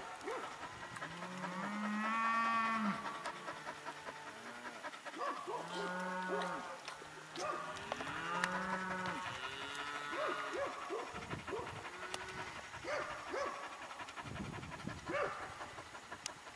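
Cattle mooing, several animals calling over one another: long drawn-out moos in the first half, then shorter, higher calls.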